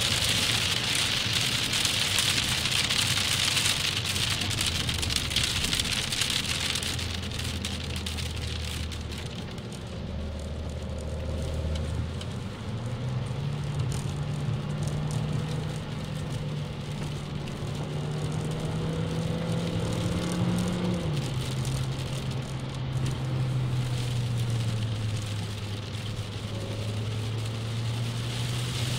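Heavy rain drumming on a car's windshield and roof, heard from inside the cabin, easing off after about seven seconds. Under it the car's engine runs steadily; its pitch steps up about twelve seconds in, climbs slowly as the car accelerates, then drops sharply about three-quarters of the way through.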